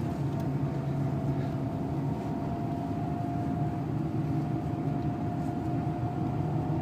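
Renault 2.0-litre turbo diesel engine running steadily at low speed, heard from inside the cabin, with tyre and road noise from the wet track. There is a thin steady whine above the engine note.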